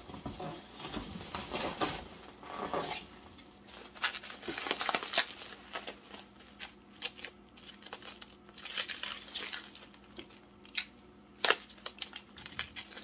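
Packing material rustling and crinkling as a small box is opened and unpacked by hand, with irregular handling noises and a few sharp clicks.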